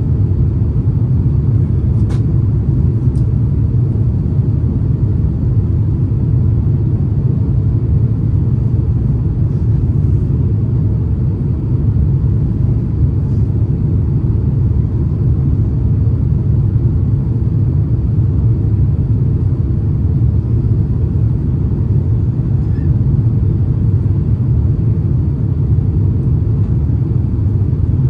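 Steady low rumble of cabin noise inside an Airbus A350-900 airliner on approach: airflow over the fuselage and its Rolls-Royce Trent XWB engines, unchanging throughout, with a couple of faint clicks about two and three seconds in.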